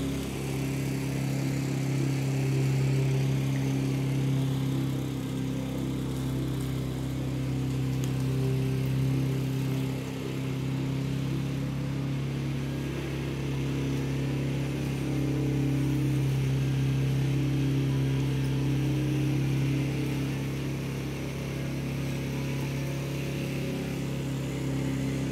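An engine running steadily with a low, unchanging hum, its level dipping slightly about ten seconds in.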